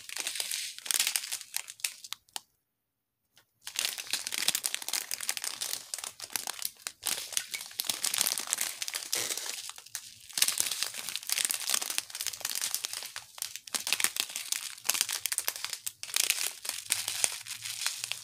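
Clear plastic bags of diamond painting drills crinkling as they are handled and turned over. The sound cuts out completely for about a second a couple of seconds in.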